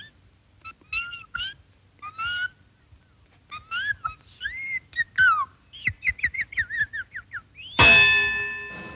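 A cartoon performer's high-pitched chirping, whistled song: runs of short notes that swoop up and down, quickening into a fast trill. Near the end a single loud metallic clang cuts in and rings on.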